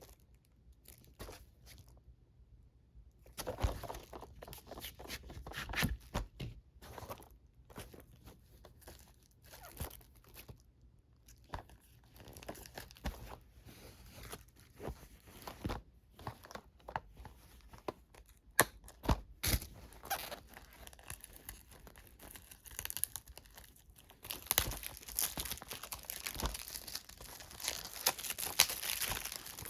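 Plastic shrink wrap being torn and crumpled off a 4K Ultra HD Blu-ray case, with scattered clicks and knocks of handling. The crinkling gets denser and louder near the end.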